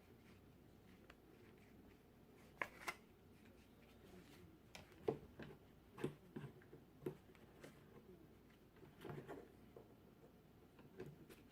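Near silence broken by scattered faint taps and clicks: a pair about a third of the way in, a run of them in the middle, and a few more near the end.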